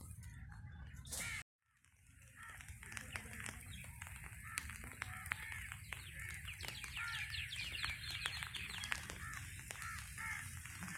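Chickens clucking and birds chirping, many short calls one after another, with a run of quick high chirps about halfway through. The sound cuts out for a moment about a second and a half in, then fades back.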